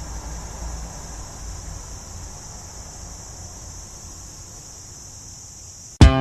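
Quiet outdoor ambience: a steady high-pitched hiss with a low rumble underneath. About six seconds in, background music cuts in abruptly and loudly with plucked guitar notes.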